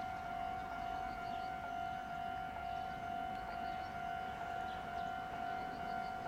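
A steady, unbroken high-pitched electronic tone, with small groups of faint high chirps above it.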